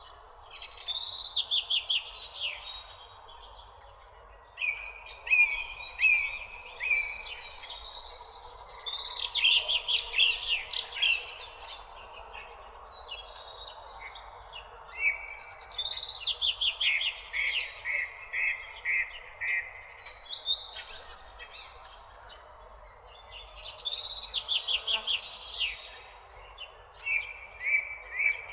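Songbirds singing in phrases of quick repeated chirps that come back every several seconds, over a steady background hiss.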